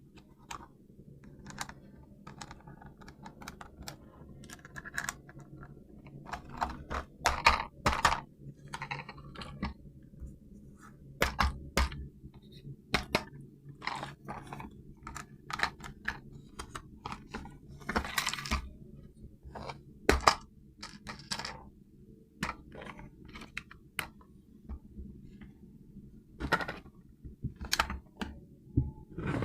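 Hands handling a toy RC car and its plastic packaging: irregular small clicks, taps and crinkles, with a louder crackly stretch around the middle, over a steady low hum.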